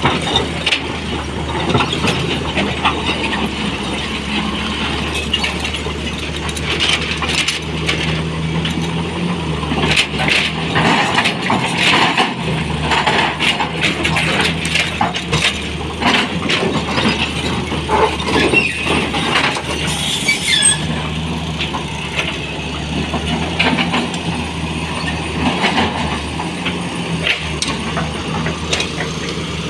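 Sany 240 hydraulic excavator's diesel engine running under load, its note rising and dropping as the machine works, with stones knocking and clattering as they are picked up and loaded. A brief high hiss about twenty seconds in.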